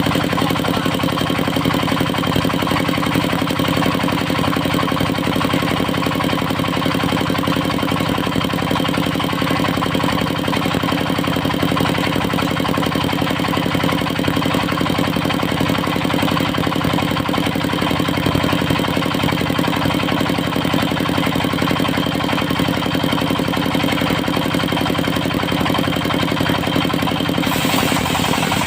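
The engine driving a mobile circular sawmill runs steadily at a constant speed. Near the end a higher hissing noise joins in.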